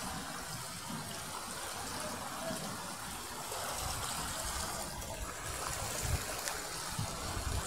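Steady rushing of floodwater running through a flooded street, a continuous hiss of water.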